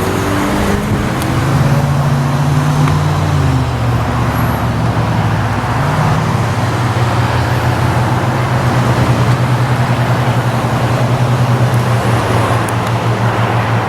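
Small propeller plane's engine droning as it passes low overhead. The pitch shifts over the first few seconds, then holds steady with a pulsing rise and fall in loudness.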